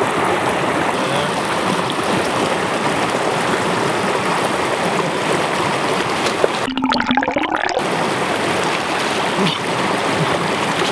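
Small fast mountain stream rushing and gurgling over stones close by, with splashing as a man washes in it and wades in. Briefly muffled about two-thirds through.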